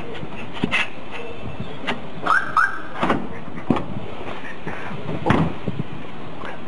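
Steady outdoor street noise with a few sharp knocks and clicks scattered through it, and two short rising squeaks about two and a half seconds in.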